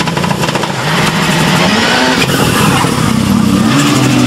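Ford Focus rallycross Supercar's turbocharged four-cylinder engine running hard at low speed near the start line, its pitch wavering with throttle blips and stepping up near the end.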